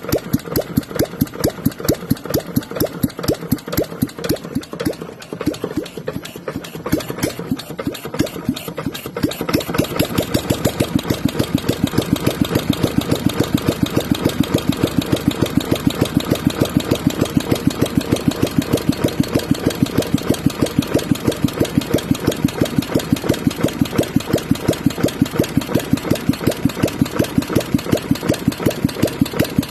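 Restored Bernard W 810 single-cylinder engine running with a steady beat of exhaust pulses, while its carburettor is adjusted with a screwdriver. For the first nine seconds or so it runs unevenly and quieter, then it picks up speed and runs louder and steadier.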